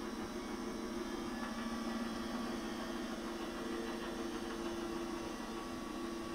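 A steady low electrical hum.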